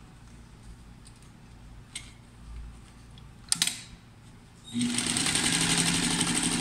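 An electric sewing machine stitching fabric: a few seconds of quiet with a couple of sharp clicks while the cloth is lined up under the presser foot, then the machine starts about three-quarters of the way through and runs steadily, with a fast even stitching rhythm.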